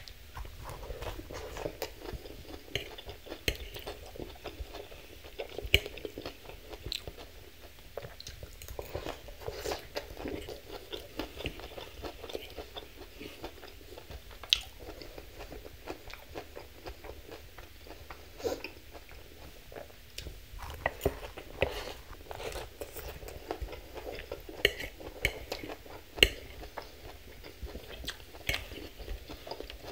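Close-miked chewing and crunching of a Thai sesame chicken salad, with many short sharp crunches throughout.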